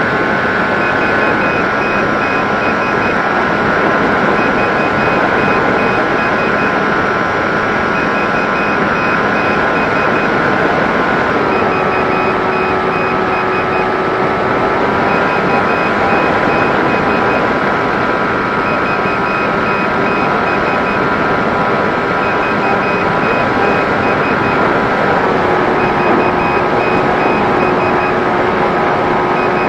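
Electric motor and propeller of a small flying-wing RC plane in flight, a steady whine over rushing air. The motor note drops about a third of the way in, rises again a few seconds later and drops once more near the end as the throttle changes. A faint repeating beep pattern runs underneath.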